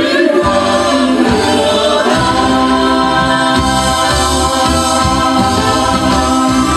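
Music: a choir singing a Vietnamese song-and-dance medley with instrumental accompaniment.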